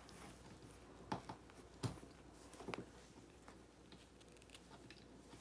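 Nearly silent room with a few faint soft clicks and rustles from a Siamese cat scuffling with its catnip toy on a rug.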